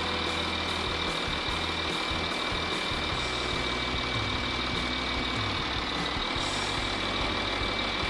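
A 2011 Volkswagen Touareg's engine idling steadily, heard with the bonnet open.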